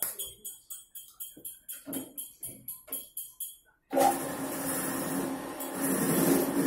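Background music with a fast tambourine beat, then about four seconds in a bench drill press starts up suddenly and runs loudly with a steady hum.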